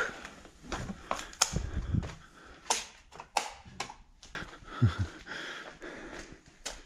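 Footsteps on a concrete floor with scattered sharp clicks and knocks of things being bumped and handled, and a couple of low thuds near two and five seconds in.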